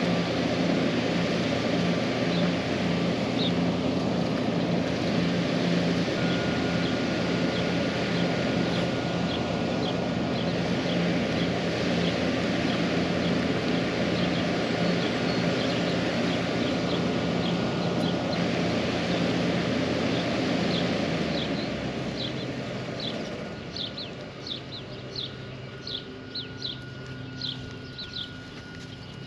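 A machine's engine running steadily under a broad rushing noise, then cutting out about 21 seconds in. Birds chirping in many short calls after.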